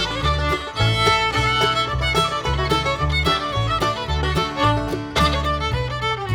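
Music: a fast, busy string-band tune of quick notes over a pulsing bass line.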